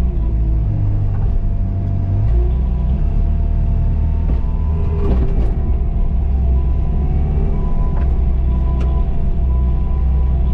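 Bobcat T595 skid steer's diesel engine running steadily while it works, a low continuous drone, with a faint high whine joining about eight seconds in.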